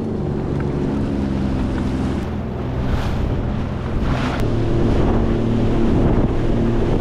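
Sea-Doo Explorer Pro 230 fishing jet ski under way, its three-cylinder Rotax engine running steadily under a rush of water and wind buffeting the microphone. Two louder splashes come about three and four seconds in.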